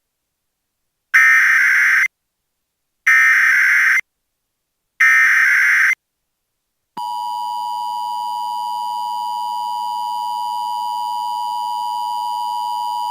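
Emergency Alert System test tones: three short buzzy bursts of the SAME digital header, each about a second long with a second's gap between them. About seven seconds in, the steady two-tone EAS attention signal begins and holds.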